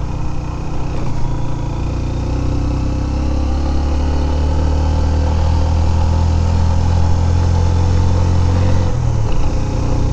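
Motorcycle engine running steadily while the bike is ridden. Its note shifts about a second in, grows stronger and deeper from about three seconds, and changes again near the end.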